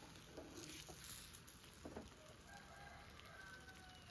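Soft scrapes of a spatula stirring thick peanut sauce in a steel frying pan, with a rooster crowing faintly in one long, held call about two and a half seconds in.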